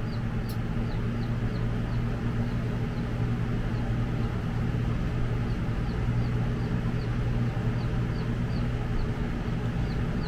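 Steady low mechanical hum, with a faint high chirp repeating about three times a second in runs that pause for a few seconds in the middle.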